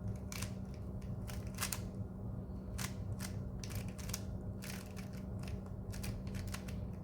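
3x3 speed cube being turned quickly during a timed solve, its layers clicking in quick, irregular bursts of about three a second.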